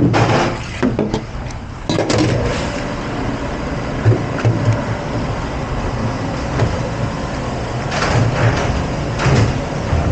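Commercial dish-room noise: dishes and racks clattering, then a steady rush of dishwashing machinery that sets in about two seconds in, with scattered knocks over it.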